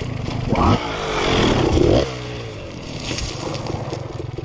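Dirt bike engine revving hard under climbing load, its pitch rising twice in the first two seconds. It then drops back to a lower, steadier running.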